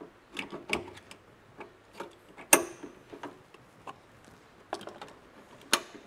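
Irregular clicks and knocks of a 5th-gen Toyota 4Runner's underhood fuse box being fitted back onto its mounting bracket, with two sharper snaps, one about two and a half seconds in and one near the end.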